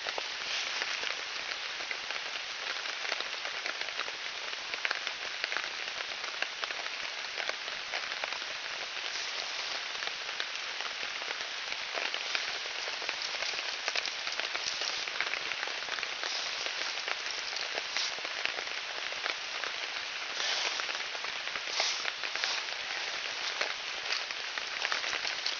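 Steady rain falling, an even hiss with scattered sharp ticks of drops.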